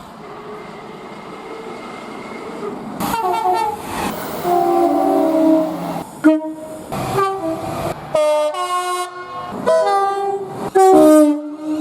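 Train rumble building for about three seconds, then a locomotive's multi-tone air horn sounding a chord in a series of about seven blasts, some short and some longer.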